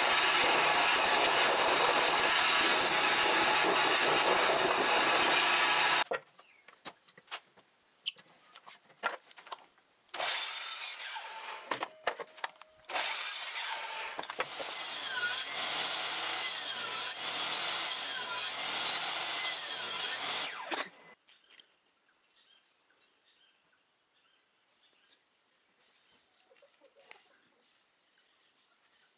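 A loud steady machine noise runs for about six seconds and stops. After some light clicks and a short burst, a Makita sliding compound miter saw runs and cuts wood for about seven seconds, then cuts off sharply. Quiet shop room tone with a few small handling clicks follows.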